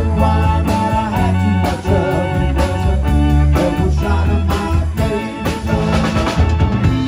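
Live rock band playing an instrumental stretch of a song: electric guitars over bass and a drum kit keeping a steady beat, with no singing.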